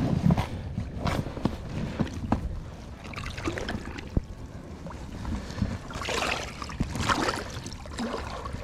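Water splashing and lapping around a float tube as it moves, with irregular small clicks and a louder wash of water a little past halfway.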